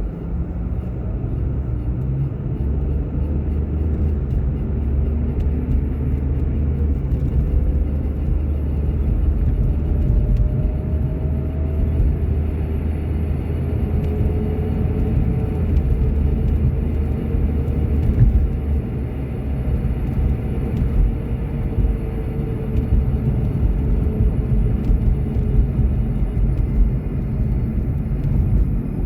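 Car driving on the road: a steady low road and engine rumble with tyre noise, and a faint whine that slowly rises and falls in pitch.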